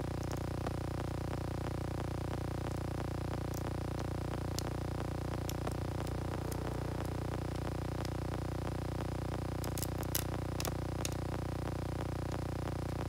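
Scattered small sharp clicks and taps, with a short cluster about ten seconds in, over a steady electrical hum.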